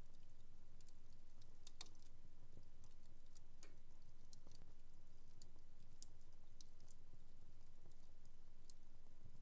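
Wood fire in a fireplace crackling faintly, with scattered sharp pops and ticks at irregular intervals, the loudest a little under two seconds in, over a low steady hum.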